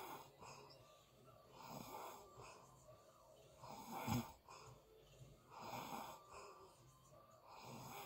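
A person snoring in sleep: faint breaths about one every two seconds, the one about four seconds in the loudest.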